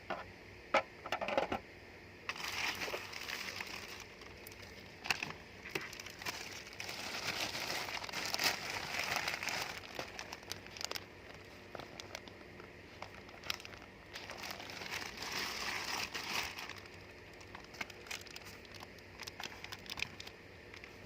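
Packaging crinkling and rustling as it is handled and pulled apart during unboxing, in several stretches with scattered sharp clicks and knocks in between.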